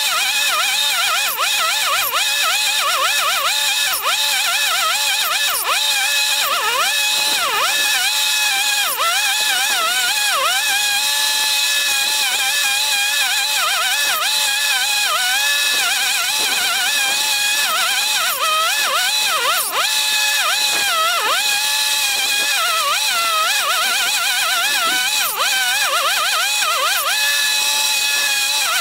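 Chainsaw running in a sped-up recording: its raised engine pitch warbles quickly up and down without a break, over a steady hiss.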